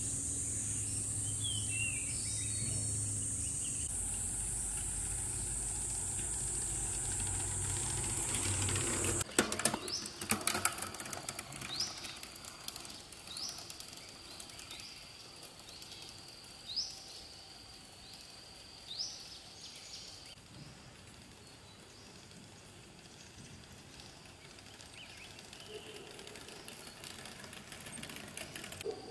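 Forest ambience: a high, steady insect drone over a low hum cuts off abruptly about nine seconds in. Then a few seconds of rapid clicking follow, and a bird repeats a short rising chirp about every second and a half.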